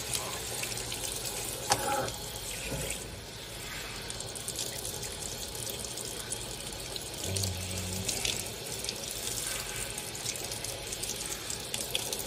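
Kitchen faucet's pull-down sprayer running, its water spraying steadily over a newborn puppy being rinsed in the sink.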